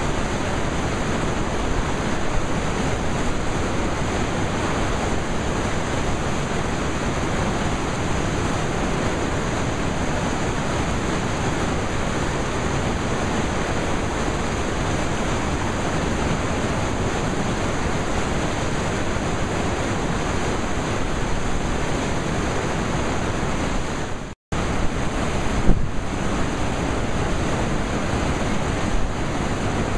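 Flooded rapids of the James River: a steady, even rush of white water breaking over rocks. The sound cuts out for an instant about two-thirds of the way through, then carries on as before.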